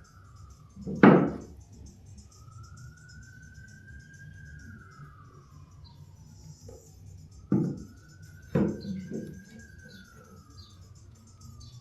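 A distant emergency-vehicle siren wailing, its single tone slowly rising and falling over and over. Three loud knocks cut through it: one about a second in, and two close together near eight seconds.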